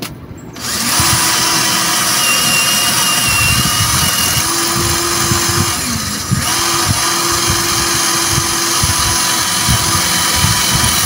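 Makita cordless hammer drill boring into a concrete wall, the motor running at a steady pitch under load. It starts about half a second in and briefly lets up a little past halfway before drilling on.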